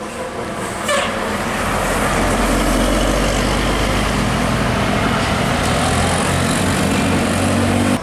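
Tour coach's diesel engine running, with tyre noise on the road, as the coach passes close by. The sound swells about a second in and then holds steady.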